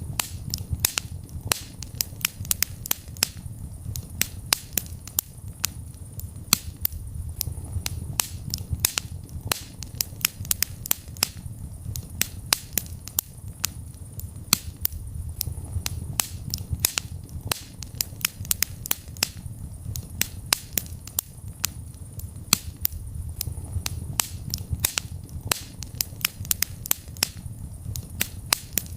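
Wood fire in a fireplace crackling: frequent sharp, irregular pops and snaps over a low, steady rumble of burning.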